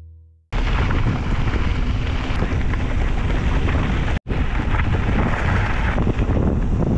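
Mountain bike in motion: wind buffeting the microphone over the rumble and crackle of tyres rolling on a gravel fire road. The noise starts abruptly about half a second in and drops out for an instant a little past the middle.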